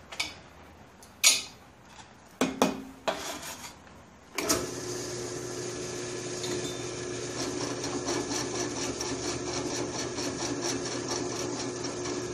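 A few sharp metal knocks as the workpiece and vise are set on the drill press table, then the drill press motor switches on about four and a half seconds in and runs with a steady hum. A fast scraping chatter builds over it as the bit cuts into the workpiece.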